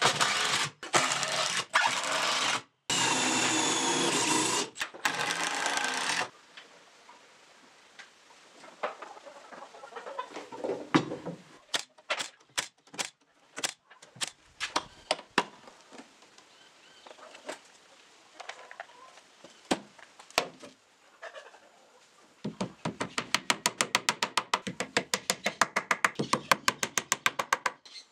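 Cordless drill driving screws into a wooden cabinet in several short runs for the first six seconds. Then scattered sharp knocks and clicks while the frame is clamped and nailed with a brad nailer. A rapid, even clicking fills the last five seconds or so.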